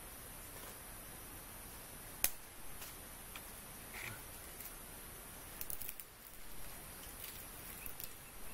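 Sticks of firewood being handled: one sharp crack about two seconds in, then scattered lighter clicks and knocks over a steady high hiss.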